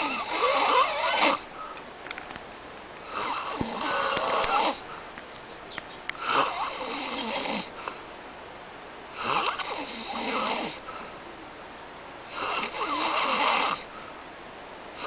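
A man snoring heavily in his sleep: five long snores, one about every three seconds, each lasting over a second.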